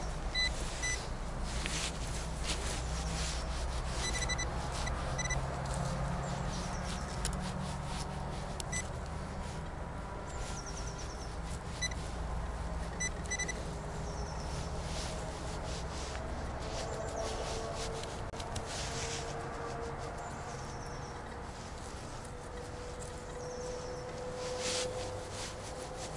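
XP Deus metal detector giving short, high single-tone beeps, about half a dozen of them in the first half, over scattered clicks and rustling.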